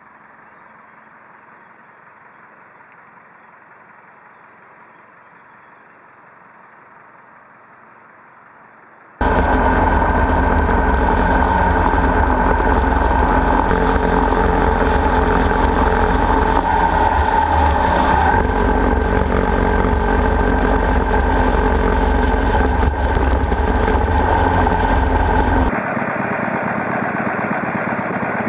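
Faint steady noise, then about nine seconds in a sudden loud, steady sound of a motorcycle being ridden, picked up from the bike itself: engine running with wind rushing over the microphone. Near the end it cuts to a quieter, different steady background.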